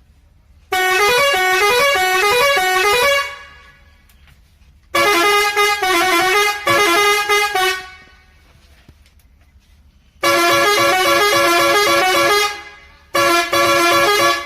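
Indian truck musical horn playing several loud blasts, each a short tune of notes that step up and down, separated by pauses of a second or two.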